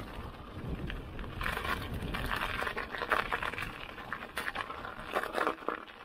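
Mountain bike tyres rolling over icy, crusted snow, with an irregular crunching crackle.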